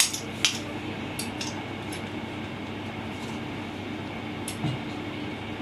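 A few light clinks and taps of kitchen utensils against a mixing bowl while dough ingredients are mixed, mostly in the first two seconds, over a low steady hum.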